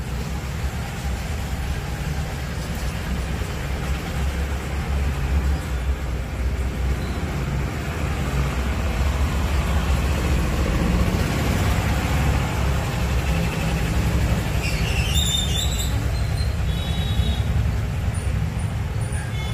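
Steady low rumble of road traffic, with a few brief high-pitched chirps about fifteen seconds in.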